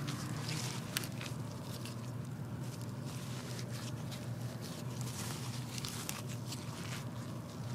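Dirt being backfilled around a pop-up sprinkler body, irregular crunching and scraping of soil, over a steady low hum.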